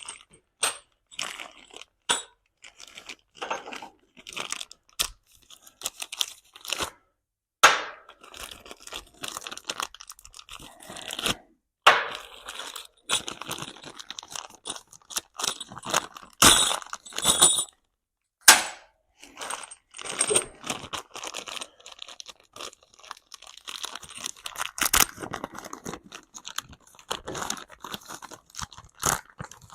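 Irregular clatter, clicks and rustling of hardware being handled: bolts and their packaging sorted by hand, with a few sharper knocks.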